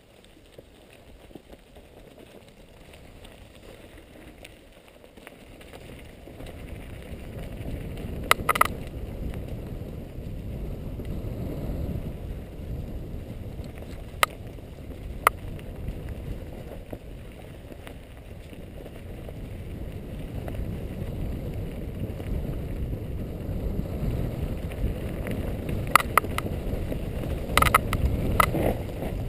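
Mountain bike riding down a dirt forest trail, heard from a helmet-mounted camera: a low rushing rumble of wind and tyres that grows louder about six seconds in as the bike picks up speed. Sharp knocks and rattles from the bike jolting over bumps come a few times, most of them near the end.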